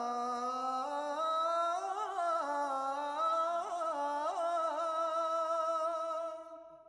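A solo voice sings unaccompanied: a slow, ornamented melodic line of long held notes with small turns and glides. It fades out near the end.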